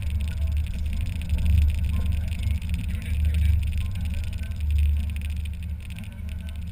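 Mazda Miata roadster driving with the top down, heard from inside the cabin: engine and road noise under a heavy wind rumble on the microphone that swells and fades.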